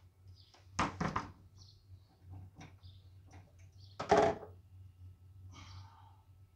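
Two louder knocks, about a second in and about four seconds in, with scattered light clicks and taps between them, over a steady low hum.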